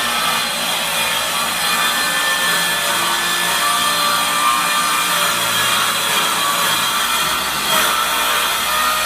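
Power saw cutting steadily through wood, a continuous loud cutting noise with a high whine and no pauses.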